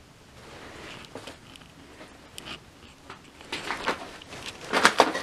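Footsteps crunching and crackling over a debris-strewn, decaying floor, growing louder and more frequent from about three and a half seconds in.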